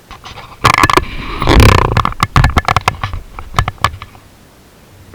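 A loud run of close knocks, clicks and scraping, starting under a second in and dying away after about three seconds.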